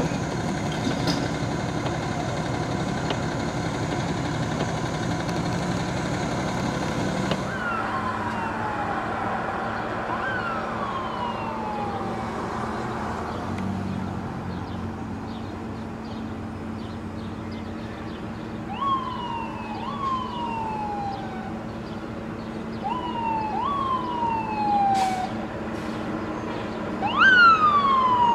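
Fire truck engine idling steadily for the first several seconds. Then fire truck sirens sound, each wail jumping up and sliding down in pitch, repeating and growing louder near the end as the trucks approach.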